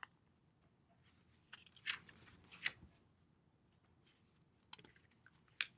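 Soft rustles and light clicks from a picture book being handled, in a few short clusters with quiet between them.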